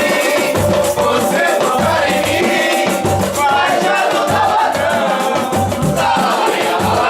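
Samba music with a sung melody over a steady, pulsing bass beat and regular percussion.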